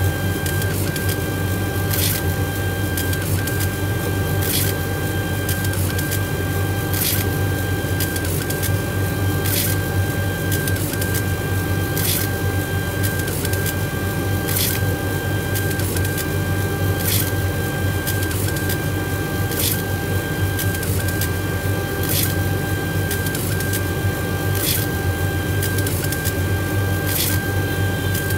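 Laser engraving machine at work engraving a wooden plate. Its motors whine steadily as the head moves, with a short tick and a brief break in the whine every second or so, over a steady low hum.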